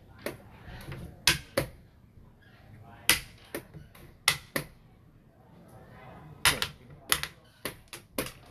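Xiangqi pieces clacking down on a wooden board and the chess clock's buttons being slapped in a fast game: a dozen or so sharp clicks, many in quick pairs, with short pauses between moves.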